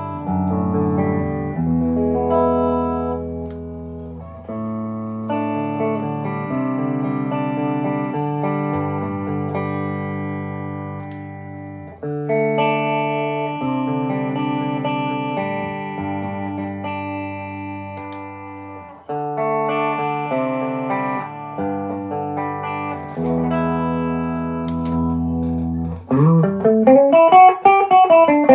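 Dax&Co. Workhorse electric guitar playing chords that are strummed and left to ring, changing every few seconds. Near the end comes a quick flurry of notes whose pitch sweeps up and back down.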